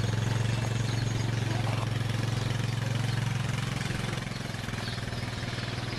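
An engine idling steadily with a low, even throb, easing off slightly about four seconds in.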